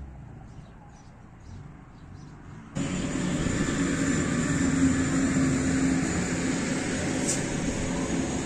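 A few faint ticks, then about three seconds in a loud, steady mechanical drone with a low hum starts abruptly and holds.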